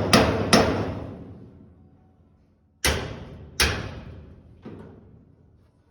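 Metal-on-metal hammer blows on a Holden Torana's torch-heated door hinge pin to drive the stubborn pin out. There are two quick strikes, a pause of about two seconds, then two more and a fainter fifth, each ringing out briefly.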